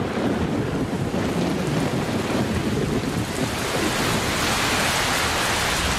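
Heavy tropical rainstorm: a rumble of thunder in the first half, then the hiss of the downpour grows louder.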